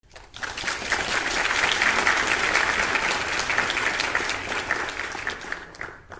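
A crowd applauding, the clapping swelling in over the first half second and fading away near the end.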